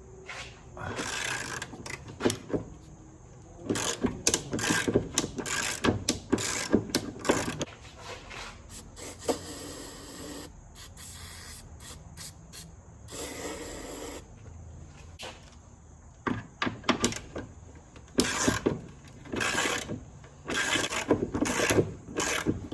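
Hand-tool work on metal car parts: irregular clicks, clanks and scraping, with two longer rasping noises about ten and thirteen seconds in.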